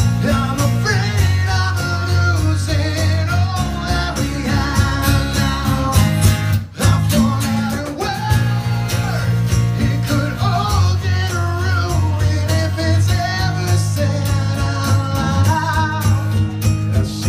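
Live acoustic rock band playing: a male lead vocal sung into a microphone over two strummed acoustic guitars and a bass guitar. The band stops for a moment about six and a half seconds in, then comes back in.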